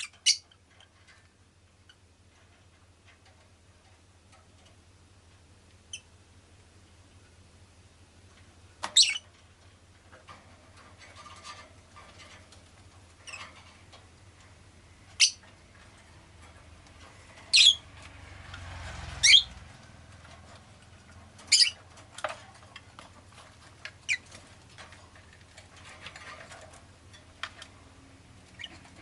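Rosy-faced lovebird giving single short, sharp, high-pitched chirps every few seconds, about ten in all, over a steady low hum. A low rumble swells and fades about two-thirds of the way through.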